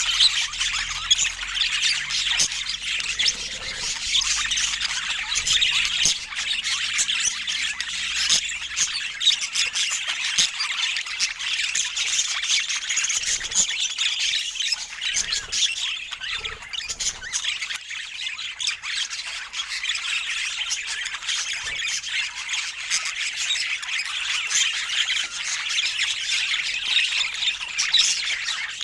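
A flock of budgerigars chattering continuously, many short high calls overlapping.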